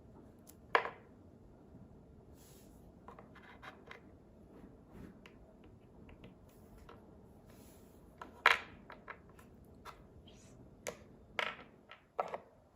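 Hands handling a doll and its packaging: scattered clicks, taps and short rustles. The sharpest come about a second in, at about two-thirds through, and three in quick succession near the end.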